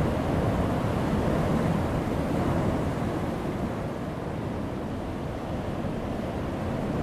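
Heavy ocean surf breaking on a rocky shore, a continuous low rumbling wash that is louder for the first few seconds, eases off in the middle, and builds again near the end as the next wave comes in.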